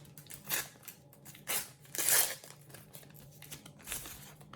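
Sticker packets and stickers being handled: a few short bursts of crinkling and rustling, the loudest about two seconds in.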